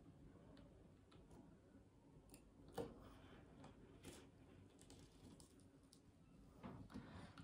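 Faint scraping and clicking of a cutting blade slicing a table tennis rubber sheet around the racket's edge, with the sharpest click about three seconds in and a small cluster near the end.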